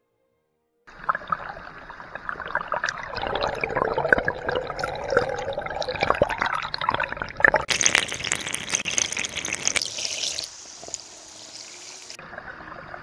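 Clear plastic bottle being filled by hand under the surface of a stream: gurgling and bubbling as the water rushes in, with many small clicks and knocks. Starts after about a second of silence, has a loud spell of hissing splash around eight seconds in, then settles to the steady rush of the stream.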